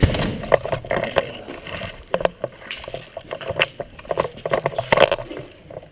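A door bangs shut, followed by a run of irregular sharp knocks and clatter.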